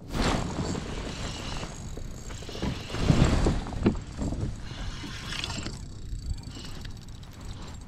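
Rustling and rubbing of clothing and gear against a plastic fishing kayak while the angler moves and handles his rod, with water and wind noise around the hull. The noise comes in uneven surges, loudest about three seconds in.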